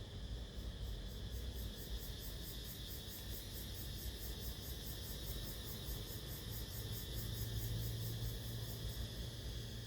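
Sony CFS-715S cassette player mechanism running: a low motor hum under a fast, even, faint high ticking, about four ticks a second; the hum grows louder about seven seconds in.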